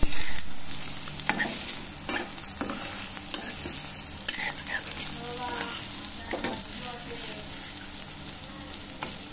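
Egg omelette frying in a pan, sizzling steadily, while a metal spatula scrapes against the pan and turns it in a series of short strokes.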